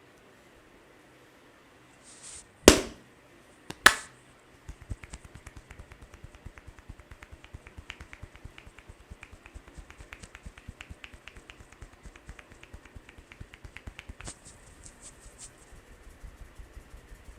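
Two loud, sharp cracks about a second apart during an Indian barber's head massage. They are followed by a fast, steady patter of light hand taps on the head, several a second, that runs on to the end.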